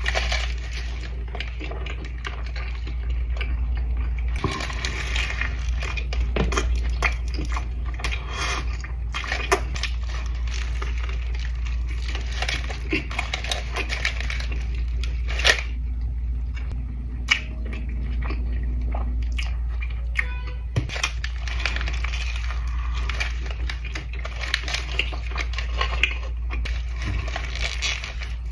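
Close-miked chewing and biting of a Chipotle burrito: wet mouth sounds with many small clicks and crackles, over a steady low hum.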